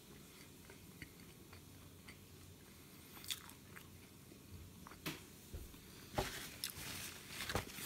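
A person eating close to the microphone: faint chewing with scattered crunchy bites and mouth clicks, sparse at first and coming thicker and louder over the last two seconds.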